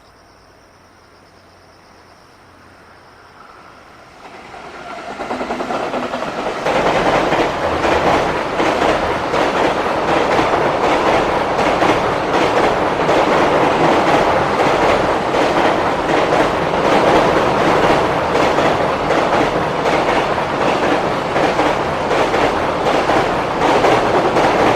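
Freight train on the Tokaido Main Line arriving and passing close by. It swells from faint to loud about five seconds in, then holds a steady rumble of rolling wagons with a rapid, regular clatter of wheels over the rail joints.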